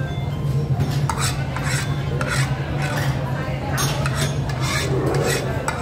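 Cutlery scraping and clinking against a dish during a meal, in short irregular strokes several times a second, over a steady low hum.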